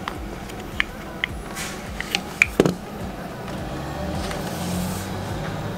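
Short, sharp clicks and taps, about six within two seconds, from handling an aluminium M.2 NVMe SSD enclosure and working the latch mechanism of its drive tray, over a steady low hum.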